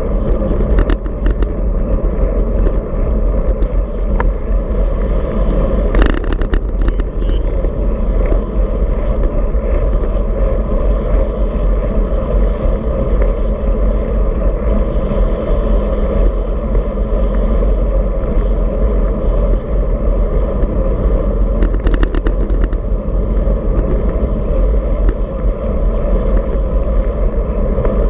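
Wind rushing over the microphone of a camera mounted on a moving road bike, a steady low rumble with tyre noise on asphalt. A few brief rattles break through, one about six seconds in and another around twenty-two seconds.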